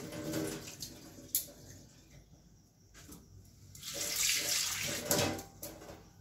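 Running water as peeled prawns are rinsed, in two spells: one at the start that fades out within about a second, and another from about four seconds in to about five and a half. A single sharp knock comes at about a second and a half.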